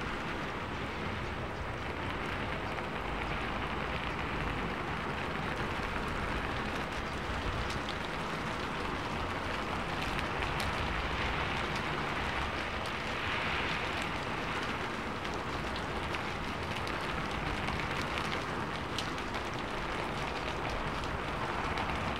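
A steady even hiss of noise with faint scattered ticks, serving as the masking sound of a subliminal-affirmations track.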